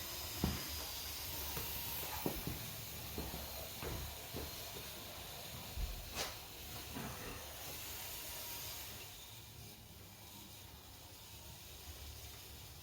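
Scattered light clicks and knocks of plastic model railway wagons being handled and set on the track, over a faint steady hiss; the clicks thin out after about nine seconds.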